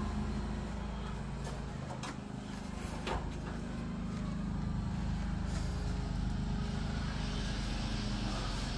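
A steady low mechanical rumble, with a couple of faint knocks about two and three seconds in.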